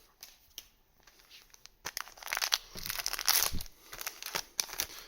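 A trading-card booster pack's wrapper being torn open and crinkled in the hands, a dense run of crackly tearing and crumpling starting about two seconds in, after a few light ticks of cards being handled.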